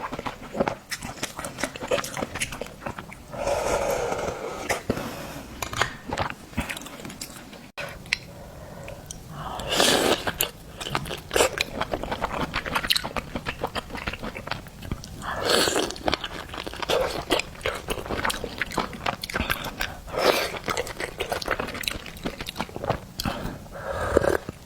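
Close-up eating sounds of a person chewing and biting seafood: a dense run of wet mouth clicks, with a louder, longer mouthful sound about every five seconds.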